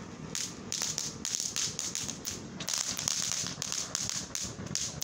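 A Jellybeans ground-fountain firework burning and spraying sparks, with a hiss that surges in short, irregular pulses two or three times a second.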